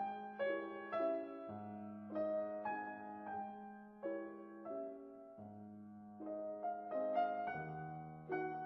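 Background music: a gentle piano piece, with melody notes over held low bass notes.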